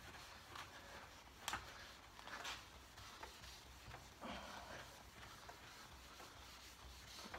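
Faint rubbing of a hand-held buffing pad on a hook-and-loop handle over a freshly waxed wooden tabletop, with two light clicks about a second apart.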